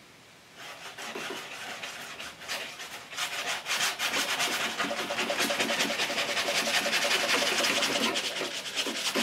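Paintbrush scrubbing oil paint onto a stretched canvas in quick back-and-forth strokes: a rapid, scratchy rubbing that starts about half a second in and grows louder from about three seconds in.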